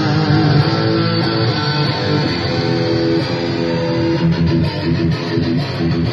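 Fender Telecaster electric guitar played through a small Blackstar combo amplifier, a continuous passage of held notes and chords.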